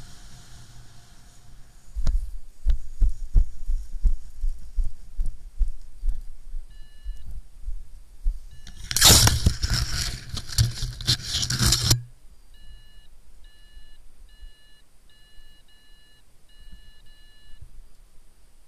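Paraglider landing on snow: a run of low thumps as the pilot's boots hit the snow, then about three seconds of loud rushing and rustling as the wing comes down. Afterwards a string of short electronic beeps, a couple a second.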